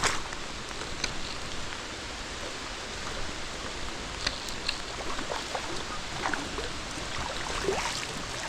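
Steady rush of a flowing creek, with rain falling. A few short, sharper water sounds come through in the second half.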